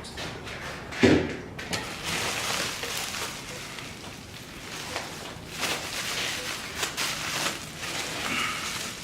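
Unpacking noises from a packed crate: a sharp thump about a second in, then rustling of packing material and scattered knocks as the item is worked loose.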